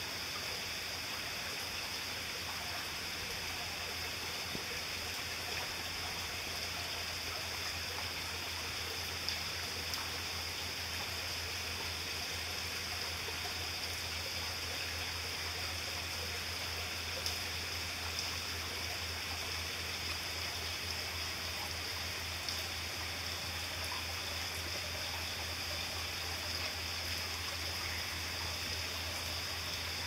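Waterfall running down a rock cliff into a plunge pool: a steady, even rush of falling water that does not change.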